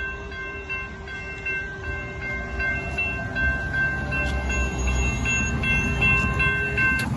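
Railroad grade-crossing warning bell ringing over and over in a steady high tone while the crossing gates rise after the train has cleared, cutting off suddenly near the end. A low rumble runs underneath.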